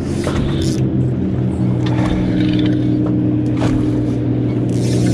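Boat's outboard motor running steadily with a low, even hum, with a few brief clicks and knocks over it.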